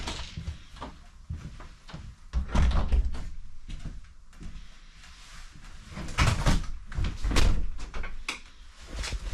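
Interior panel doors of a static caravan being opened and shut, with handle and latch clicks and dull thumps from the floor. The heaviest thumps come about two and a half seconds in and again around six to seven seconds.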